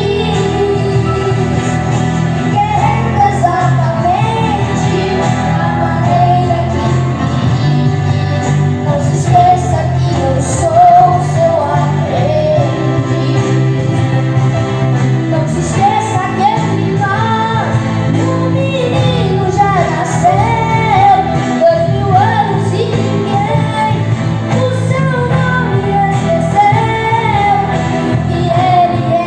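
Choir singing a song over steady low accompaniment notes, the melody led by high female voices.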